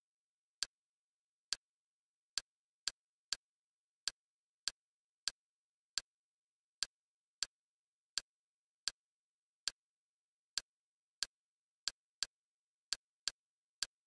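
Kodi menu navigation clicks: about twenty short, sharp clicks at uneven intervals, one or two a second, each one a step of the selection through the add-on's list.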